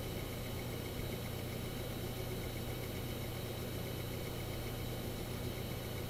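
Western Digital Caviar 3.5-inch hard drive idling: a steady hum with a repeating tac-tac ticking from its head assembly. The owner notes it comes only at idle, stops while the drive reads or writes, and is not the sound of head parking.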